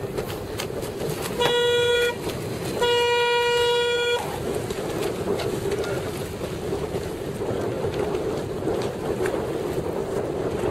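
Signal horn blown twice, a short blast and then a longer one, as a signal to a sailing race fleet, over steady wind and water noise on the microphone.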